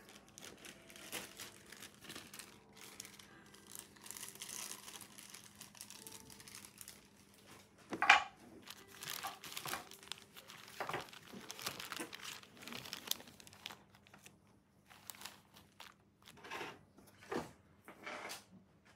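Clear plastic zip-seal bags crinkling and rustling as they are handled, in irregular bursts, with one sharper, louder crackle about eight seconds in.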